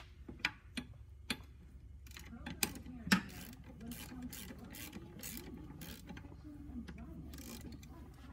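Hand ratchet on a long socket extension tightening transmission mount bolts into a crossmember, clicking in repeated back-and-forth strokes, with one louder metal clank about three seconds in.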